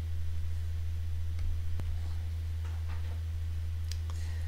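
Steady low electrical hum with a few faint, scattered clicks of a computer mouse.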